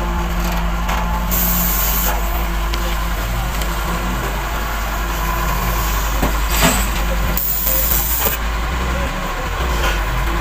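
Heavy diesel engines of an excavator and dump truck running steadily at a loading site. Short bursts of hiss break in about a second in and again around six to eight seconds in.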